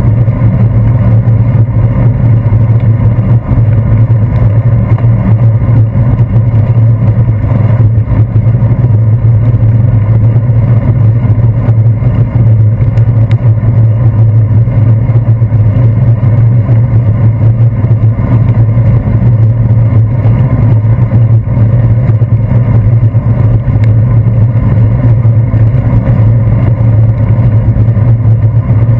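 Bicycle riding on a wet road, picked up by a handlebar-mounted GoPro Hero 2 in its housing: a loud, steady, muffled low rumble of the ride with no distinct events.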